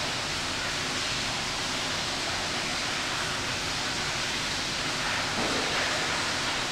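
Aquarium hall ambience: a steady, even rushing hiss with no distinct events.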